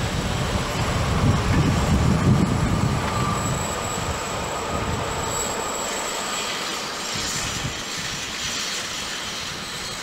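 Freight train of goods wagons passing on the track, wheels running on the rails with a steady rumble. A faint wheel squeal comes in about three seconds in.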